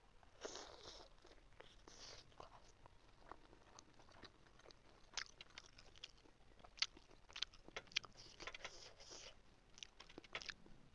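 Close-miked chewing of a steamed chicken momo: wet mouth clicks and smacks scattered throughout, with a few sharper, louder clicks between about five and eight seconds in.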